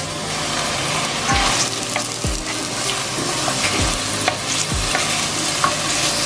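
Diced bacon sizzling in hot oil in a frying pan as it is tipped in and stirred with a wooden spoon, with scattered clicks and scrapes of the spoon against the pan.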